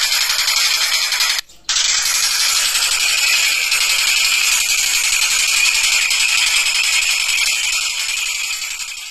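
Tengkek buto kingfisher giving a rapid, continuous rattling chatter, cut off briefly about one and a half seconds in.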